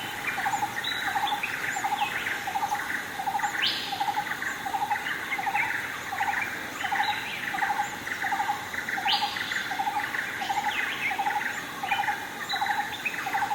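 Birds calling in forest. One repeats a short note evenly about twice a second, others chirp more quickly and higher, and a rising call breaks in twice.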